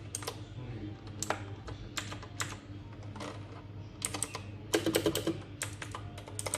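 Keys being typed on a Lochos full-size mechanical gaming keyboard with clicky Xinda Blue switches: scattered single keystrokes, then a quick run of clicks about four to five seconds in.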